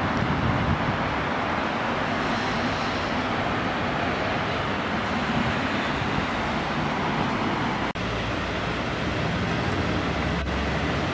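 Steady street traffic noise with a low engine rumble and no revving. The sound drops out briefly about eight seconds in.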